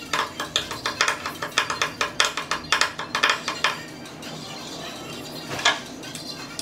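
Rapid clicking from a hand tool being worked on a table part, about six clicks a second, stopping a little past the middle, then one louder click near the end.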